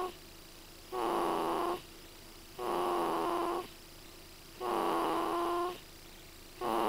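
Loud snoring in a steady rhythm: a pitched, whistly snore about every two seconds, each lasting about a second, with quiet pauses between breaths.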